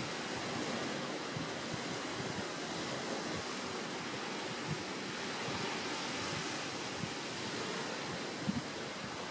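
Steady rushing outdoor background noise with a few faint low knocks about eight and a half seconds in.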